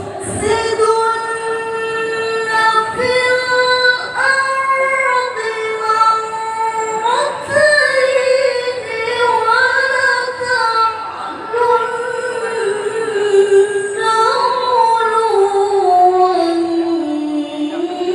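Quran recitation sung by one high-pitched voice, unaccompanied: long held, ornamented notes that step and glide between pitches, sinking lower near the end.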